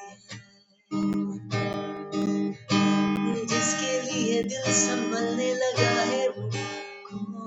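Acoustic guitar strumming chords in an instrumental passage of a song. It pauses briefly and comes back in about a second in.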